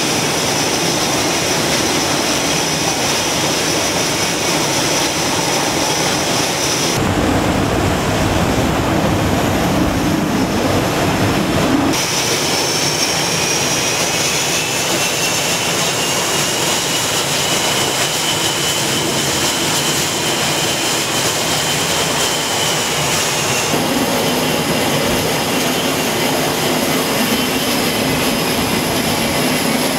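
Carrier jet aircraft engines running on the flight deck: a loud, steady roar with a high turbine whine over it. The sound changes abruptly a few times.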